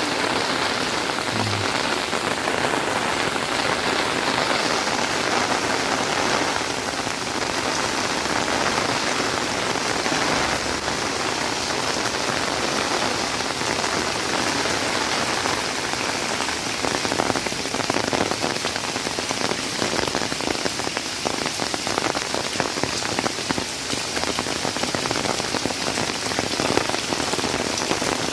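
Heavy rain falling steadily on hard surfaces, a dense, even hiss with many individual drops pattering through it.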